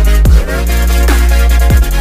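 Electronic music with heavy deep bass and a steady beat of falling-pitch drum hits.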